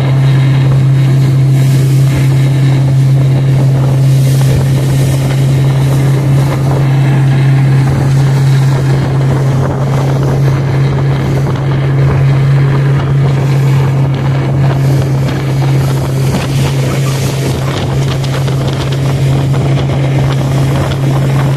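Motorboat engine running steadily under way, a constant low drone, with wind buffeting the microphone.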